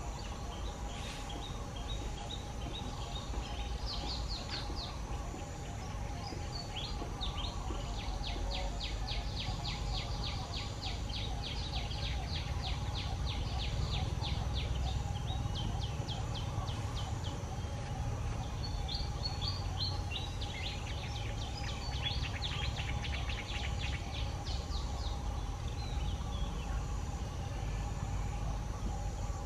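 Outdoor ambience: a long run of rapid high chirps, about five a second, over a steady low rumble and a faint steady high hum.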